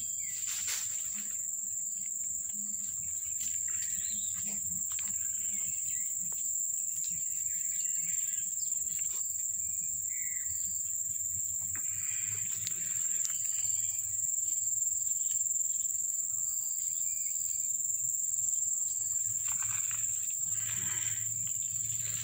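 Steady, shrill insect chorus, one unbroken high-pitched drone, with a few faint brief sounds coming and going beneath it.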